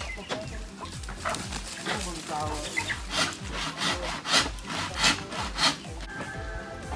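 Hand saw cutting wood in repeated back-and-forth strokes, with background music underneath.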